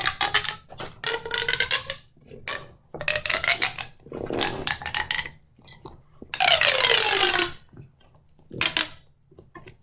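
Mini plastic pop tubes being stretched and squeezed: several bursts of rapid plastic pops and clicks, some with a whirring tone, one of which falls in pitch past the middle.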